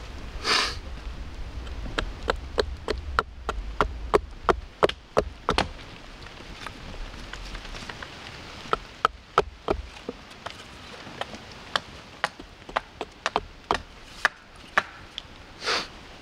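Hand axe carving a wooden spoon ladle blank braced against a chopping stump: a run of sharp chopping knocks, often two or three a second, thinning out after about ten seconds.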